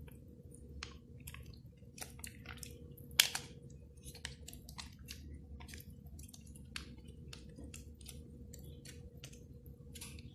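Plastic sachet of tom yam paste crinkling and squelching as it is squeezed and scraped out with a spatula: a run of small, irregular crackles with one sharper click about three seconds in, over a faint steady hum.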